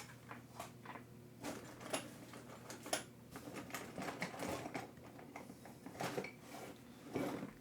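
Hand-work on the plastic chassis parts of a nitro RC truck: irregular small clicks, taps and knocks of hard plastic parts and tools being handled, with a few sharper clicks along the way.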